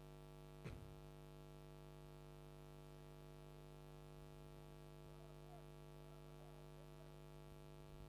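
Faint steady electrical mains hum with many overtones, with a single short click under a second in.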